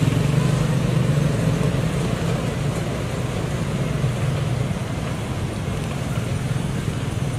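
Steady low mechanical drone over a haze of background noise, like a running engine or motor traffic.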